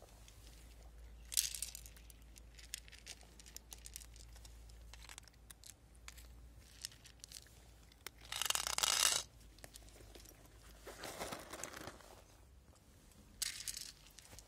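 Cats crunching dry kibble, small crisp clicks throughout, with louder rustling rattles now and then; the loudest, about eight seconds in, comes as a hand puts down a plate of dry kibble.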